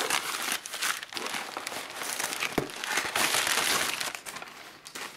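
Crumpled newspaper packing crinkling and rustling as it is pulled out of a cardboard shipping box, with one sharp knock about two and a half seconds in. The rustling dies down near the end.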